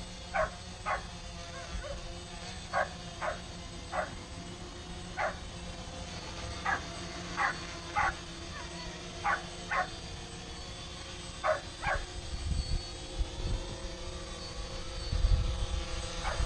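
A dog barks repeatedly, often twice in quick succession, over the steady hum of a quadcopter drone's propellers. Near the end a low rumble rises as the drone comes down close by.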